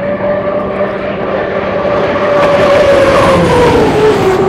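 Turbine engine of an Unlimited hydroplane running hard, a steady high whine over a rushing roar. In the second half the whine slides down in pitch as the sound grows to its loudest.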